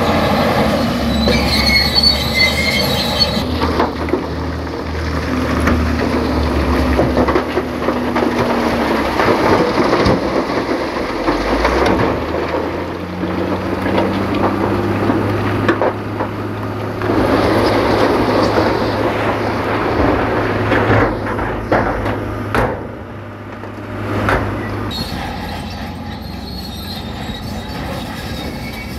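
Heavy diesel earthmoving machinery working: engines running with a steady drone, high metallic squealing near the start and again near the end, and scattered clanks and knocks.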